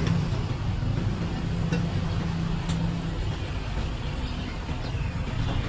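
Road traffic: a motor vehicle's engine running with a steady low drone, with a few faint light clicks.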